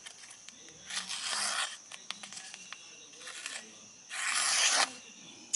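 High-carbon Alabama Damascus knife blade slicing through a sheet of paper in two cutting strokes, a short one about a second in and a louder one about four seconds in, with a few small clicks of handling between; a sharpness test of the edge.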